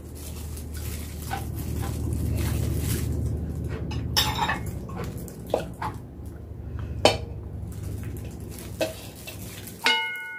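Chopsticks and a metal spoon scraping and clicking against a pan while turning sticky sauced pork trotters, over a low steady hum. Near the end, a sharp clink of the metal spoon rings on in several clear tones.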